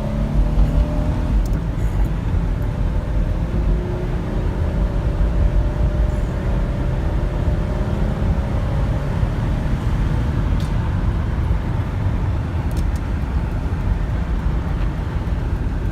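A 2004 Chevy Venture minivan's 3.4-litre V6 engine and road noise, heard from inside the cabin as it accelerates hard onto the highway. The engine note rises over the first several seconds, then settles into a steady driving rumble.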